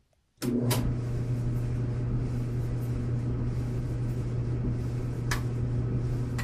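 Whirlpool electric clothes dryer starting up on a medium setting: its drum motor comes on suddenly and runs with a steady low hum, with two clicks as it starts and another click about five seconds in.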